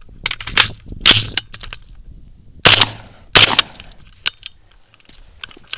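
Two sharp gunshots about three-quarters of a second apart, near the middle, after a few smaller clacks and rattles in the first second or so.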